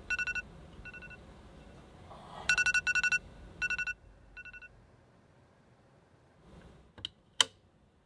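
Electronic alarm beeping in groups of rapid short beeps on one high pitch, growing fainter and stopping about halfway, followed by two sharp clicks near the end.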